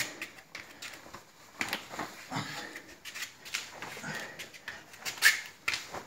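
A man's short, sharp exhalations through the mouth and nose, blown with each punch while shadowboxing. The exhalations come irregularly, roughly one or two a second, with a louder one near the end.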